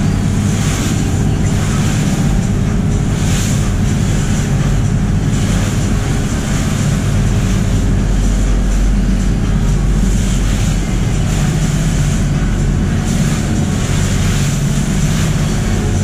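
Lobster boat under way: its engine runs at a steady drone while water rushes and splashes along the hull, swelling into louder bursts of spray every couple of seconds.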